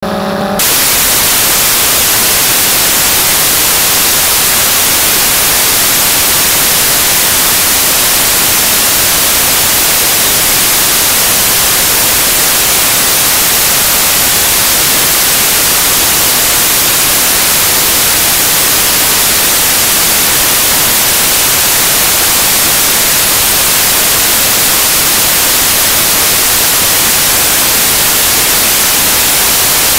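Loud, steady electronic static hiss like white noise, with no engine or propeller tones and no separate sounds in it.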